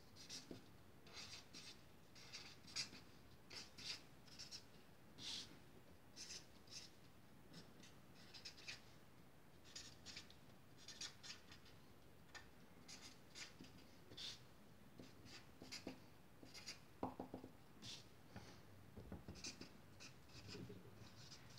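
Felt-tip marker pen scratching on paper in many short, irregular strokes as block letters are written, with a brief squeak about three quarters of the way through.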